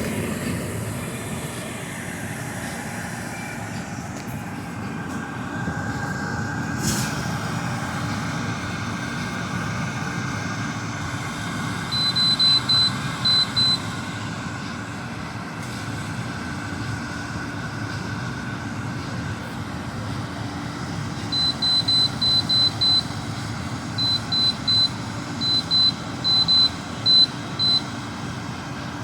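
GE dehumidifier running steadily at maximum, its compressor and fan making a constant hum. Short, high electronic beeps come in two runs: about six around the middle and a longer string of about twenty near the end.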